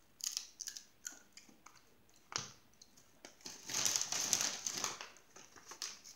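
Doritos tortilla chip crunched between the teeth in a few short crackles, then a chip bag crinkling for about a second and a half as a hand goes into it.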